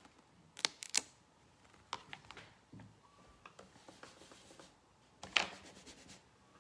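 Rubber stamping at a craft table: a stamp tapped on an ink pad and pressed onto cardstock, with the clicks of the stamp and case being handled. A few sharp clicks and taps, the loudest pair about half a second and one second in, and another with a short rattle a little past five seconds.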